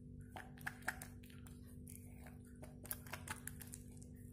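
A plastic spoon stirring a thick shampoo slime mixture in a small glass bowl, making irregular light clicks and taps against the glass.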